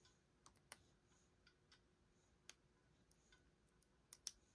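Faint, sparse clicks of a lock pick working the pins inside a lock's keyway: a few single ticks, then two close together near the end.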